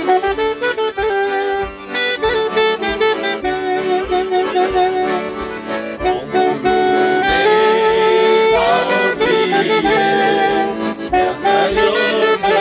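Saxophone and accordion playing a melody together, the saxophone leading and holding one long note a little past the middle.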